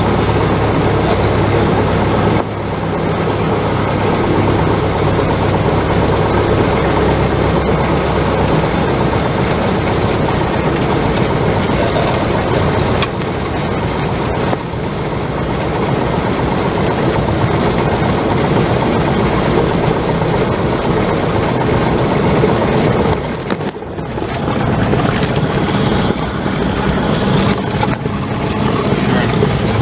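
Cessna 172's piston engine and propeller running steadily at low power, a loud drone heard inside the cabin, briefly quieter about 23 seconds in.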